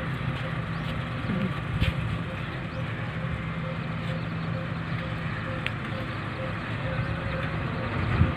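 Steady low engine-like hum under constant outdoor background noise, with a few faint clicks.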